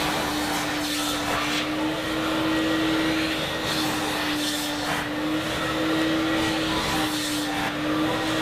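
Upholstery extractor's vacuum motor running with a steady whine, pulling sprayed cleaner back out of the car seats.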